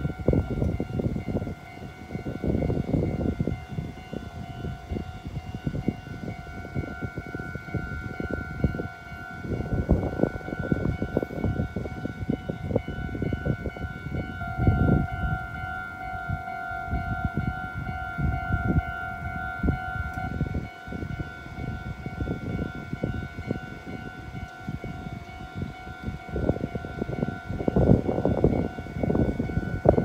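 Japanese railway level-crossing warning bell ringing steadily, the crossing signal active with its barriers down. Irregular low rumbling runs underneath.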